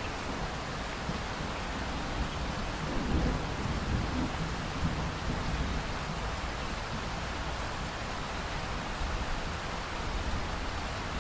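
Steady rain falling, with a low rumble of thunder rolling in about three seconds in and fading after a couple of seconds.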